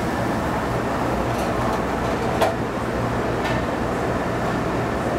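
Steady rushing hum of a commercial kitchen's ventilation hood and range, with one sharp metal clank about halfway through and a few fainter clicks as a pan is set into the oven.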